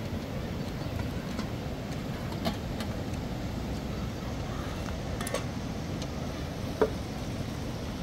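Steady low outdoor wind rumble, with a few light clinks of metal pots and dishes being handled; the sharpest knock comes near the end.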